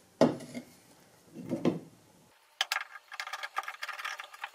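A tapered wooden table leg being screwed by hand into an angled metal leg plate on a wooden base. There are two knocks as the leg's threaded end is set into the plate, then, from a little past halfway, rapid, irregular metallic clicking as the threads turn in the plate.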